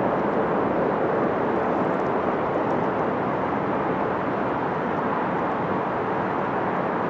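Distant vehicle noise: a steady, even rumble with no distinct pitch.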